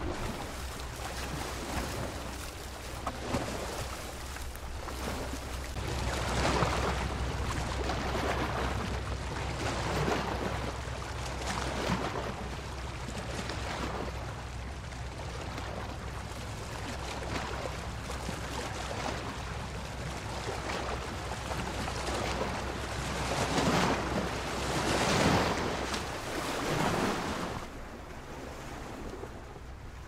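Ocean surf: waves breaking and washing up a beach over a steady low rumble, swelling in several louder surges, the strongest a few seconds before the end.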